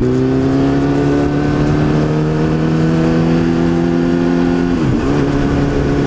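2006 Kawasaki ZX-10R inline-four engine running through a Two Brothers Racing M-2 VALE exhaust with the catalytic converter deleted, pulling on the road with its pitch rising slowly. The pitch dips briefly about five seconds in, then picks up and holds steady again.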